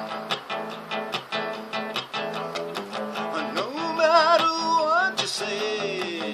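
A man strumming an archtop guitar in a steady rhythm, chord after chord; about three and a half seconds in, his singing voice comes in over it with long, wavering held notes.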